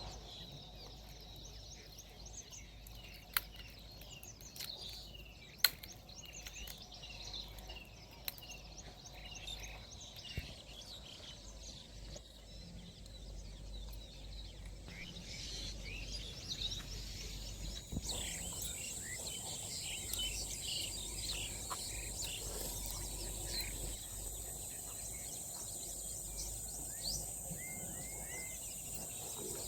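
Outdoor ambience of many small birds chirping. A steady high-pitched insect buzz joins about two-thirds of the way through, and two sharp clicks sound within the first six seconds.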